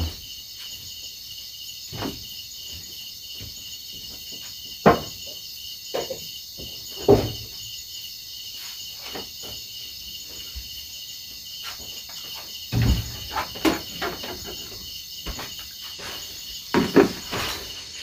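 Crickets and other night insects chirring steadily, with a few scattered knocks and clunks as kitchen things are handled to prepare food, a small cluster near the end.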